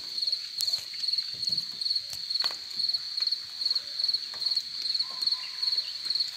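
Crickets chirping, a steady high-pitched pulsing at about two to three chirps a second.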